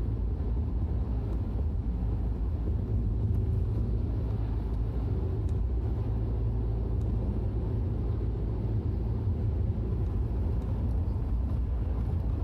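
Steady in-cabin drone of a Peugeot 308's 1.6 HDi diesel engine cruising in fifth gear, mixed with low road and tyre rumble from winter tyres.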